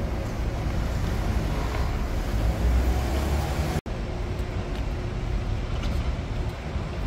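City street traffic: cars passing on the road, with a low rumble that swells about three seconds in. The sound drops out for an instant just before four seconds, then the traffic carries on.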